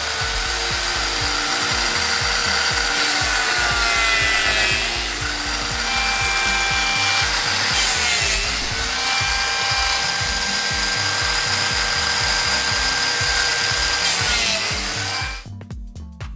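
Electric power tool working wood: a steady whine with a rough grinding noise, dipping in pitch several times as it is pressed into the work, then cutting off shortly before the end. Background music with a steady bass line plays underneath.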